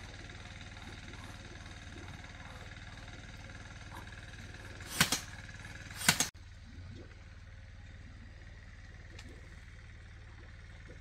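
Two quick double strikes, like sharp knocks, about a second apart over a steady low hum; the hum drops abruptly just after the second.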